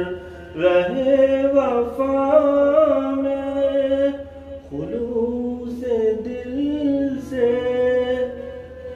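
A man's voice singing a line of an Urdu ghazal slowly, in two long phrases with drawn-out, held notes and gliding melodic turns, the first starting about half a second in and the second about five seconds in.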